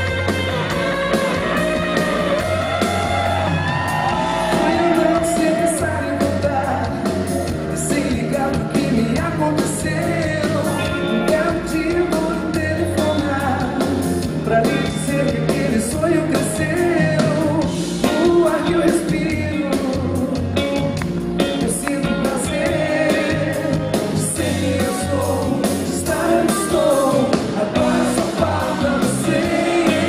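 Live pop-rock band: a woman singing lead over electric guitar and the band.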